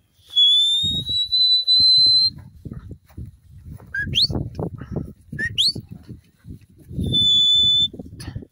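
A stock handler's whistle commands to a working sheepdog: a long whistle rising slightly in pitch, two short sharply upswept whistles, then a steady held whistle near the end. Low irregular thuds and rustling of movement over grass run underneath.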